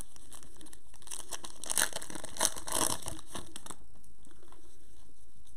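Trading cards rustling and sliding against each other as gloved hands shuffle through a stack, in a cluster of soft scrapes from about a second in to nearly four seconds in.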